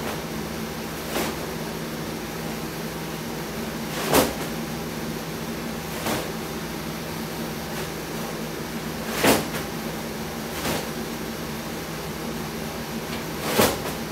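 Sharp thumps from a sandbag being lifted and lowered in a repeated exercise. There is a loud thump every four to five seconds, each followed a second or two later by a softer one, over a steady ventilation hum.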